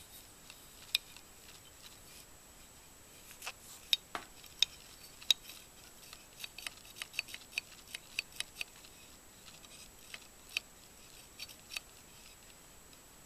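Small sharp clicks and taps of AR-15 lower receiver parts being handled and fitted, irregular, with a few louder ones early and a quicker run of lighter clicks in the middle.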